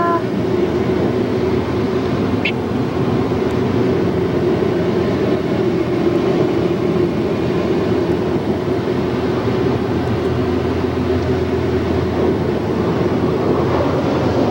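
Automatic car wash equipment heard from inside the car: a loud, steady rush of spray with a constant machine hum under it, running without a break.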